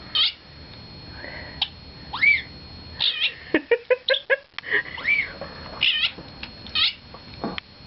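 House cat making short chirps that rise and fall in pitch, with a quick run of clicking chatter about three and a half seconds in: the chattering a cat makes at a bird it cannot reach.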